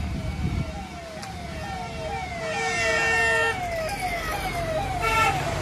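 A siren repeatedly sweeping down in pitch, about two to three sweeps a second. A steady, higher blare joins it for about a second midway and again briefly near the end.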